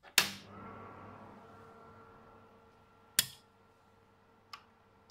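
A power switch clicks on and the TI-99/4A Peripheral Expansion Box starts up, its fan and power supply settling into a steady hum with a few fixed tones. Two more switch clicks follow, a loud one about three seconds in and a softer one near the end, as the rest of the system is switched on.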